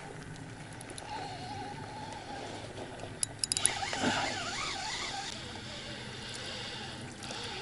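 Spinning reel on a feeder rod being wound in to check a bite, a steady mechanical whir with a wavering pitch and a few sharp clicks about three and a half seconds in.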